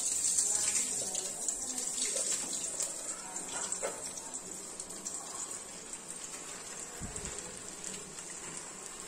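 Hot oil sizzling in a kadai as frozen McCain Smiles potato snacks deep-fry. The sizzle is loudest in the first few seconds and then eases off.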